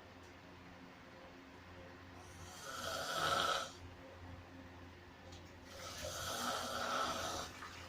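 A sleeper snoring loudly: two long snores about three and a half seconds apart, each lasting a second and a half to two seconds.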